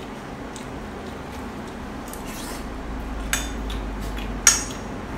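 A metal spoon clinking and scraping in a white ceramic rice bowl, with two sharp clinks about a second apart near the end, the second louder. A low steady hum runs underneath.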